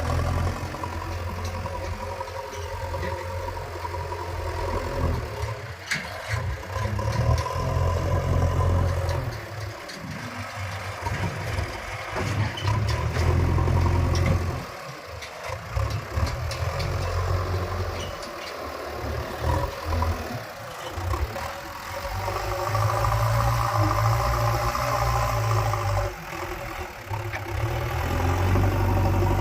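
Diesel engine of a JCB 3DX backhoe loader working, its loudness rising and falling repeatedly as the engine is loaded and eased, with a few sharp knocks about six seconds in.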